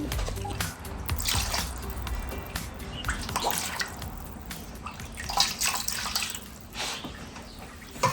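Dogs chewing and gnawing on big meaty bones: wet smacking and crunching with many irregular clicks, over background music.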